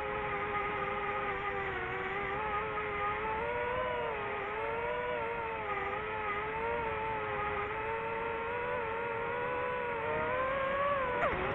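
DJI FPV drone's motors and propellers whining steadily in flight, the pitch wavering up and down with the throttle. Near the end the pitch drops sharply and then climbs back.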